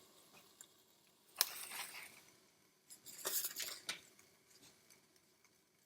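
Two brief bouts of kitchen handling noise: a sharp click followed by a short scrape or rustle about a second and a half in, then a second scraping clatter about three seconds in.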